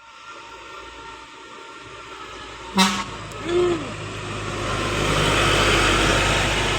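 Bus horn: a short, sharp toot about three seconds in, then a brief note that bends up and back down. Engine and road noise swell in the second half.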